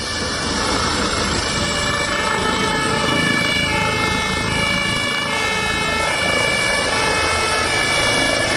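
Emergency vehicle's two-tone siren, stepping back and forth between a high and a low pitch, over steady traffic noise.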